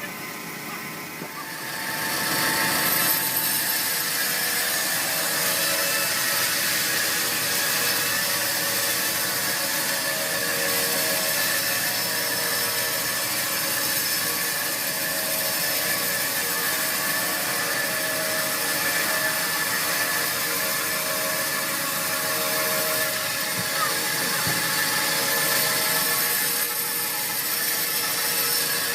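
Sawmill saw cutting a large, hard teak log. It grows louder about two seconds in, then runs steadily with a high whine.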